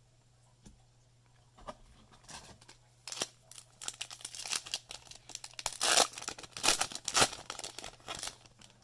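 A foil Magic: The Gathering booster pack wrapper being torn open and crinkled by hand: a run of irregular rips and crackles, loudest about three seconds in and again around six to seven seconds in.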